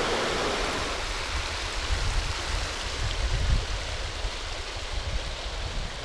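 Steady rush of a mountain river flowing over rocks, with a low rumble swelling in the middle seconds.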